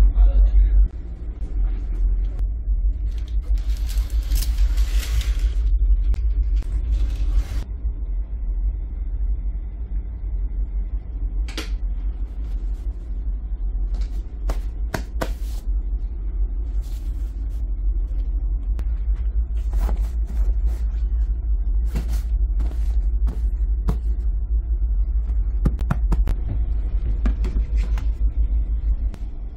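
Deep, steady rumble of a ferry's engines carrying through the cabin. Over it are a rustle of handling a few seconds in, and scattered clicks and taps as things are touched.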